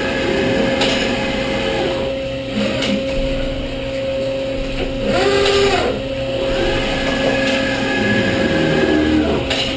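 DeHoff 218 four-spindle gundrilling machine and its parts-handling automation running: a steady motor hum with a whine that comes up about six seconds in, holds for about three seconds and drops away, and a few sharp clicks from the moving mechanism.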